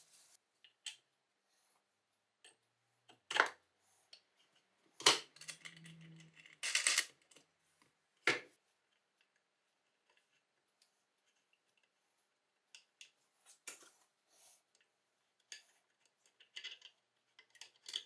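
Workshop assembly noises: metal parts being handled and set against a wooden base, with four sharper knocks in the first half, one drawn out into a short scrape. Near the end come lighter clicks as a screwdriver drives a screw into the front of the base.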